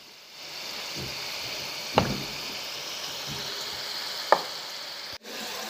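Peanuts deep-frying in a pan of hot oil: a steady sizzle of bubbling oil, broken by two sharp clicks, one about two seconds in and one about four seconds in.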